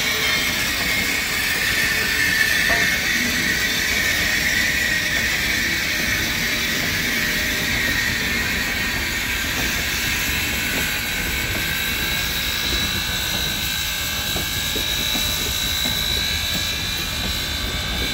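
Union Pacific Big Boy No. 4014, a 4-8-8-4 articulated steam locomotive, rolling slowly past with a steady rumble and hiss, and a high whine that slowly rises in pitch.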